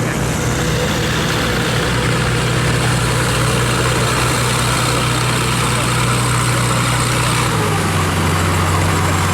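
Large diesel engine of a river cargo barge running hard and steady, a deep engine note over broad noise. About three-quarters of the way through, the low note drops to a lower pitch.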